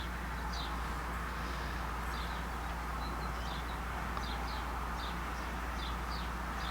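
Small bird chirping repeatedly in short, quick downward notes over a steady low hum.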